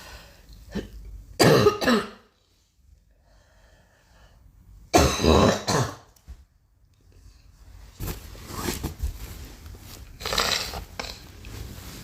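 A girl coughing in separate bouts: a double cough about a second and a half in, the loudest bout around five seconds in, and fainter coughs near the end.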